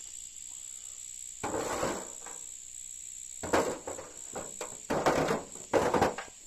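Stones being tossed into a metal wheelbarrow, landing with a clatter about four times, over the steady high chirring of insects.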